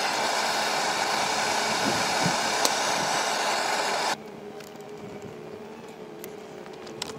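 Propane forge burner running with a steady rushing hiss, then cut off abruptly about four seconds in as the gas is shut off. A few faint clicks follow near the end.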